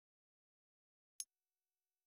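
A single short click in otherwise dead silence: the tablet's touch sound as the on-screen pause button is tapped.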